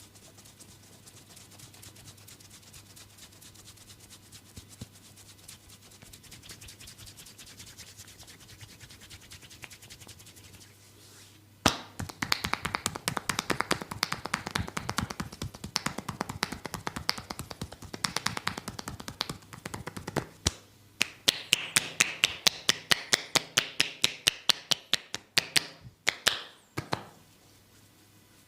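Hands striking the body in a percussive massage: faint light tapping at first, then loud, rapid slapping strokes from about twelve seconds in. After a brief pause about twenty seconds in, a faster run follows at roughly six strikes a second and stops near the end.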